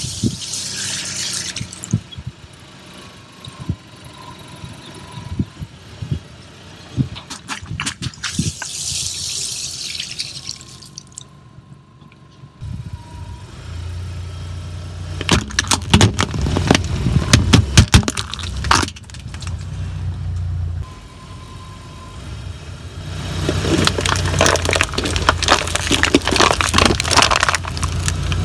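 Car tyre rolling over and crushing objects on asphalt. In the first half, water-filled balloons burst with gushes and splashes of water. After that, a low engine hum runs under a cluster of sharp cracks and pops, and a long crackling crunch comes near the end.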